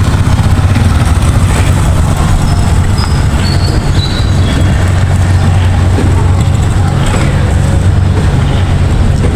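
Loud, steady low rumble mixed with noise, with a few faint short high chirps about three seconds in.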